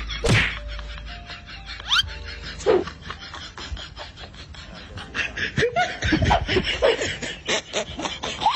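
A person laughing in short bursts.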